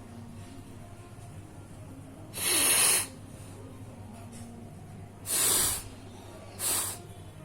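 A person blowing their nose hard, three forceful blasts of air: two longer ones and a shorter one near the end.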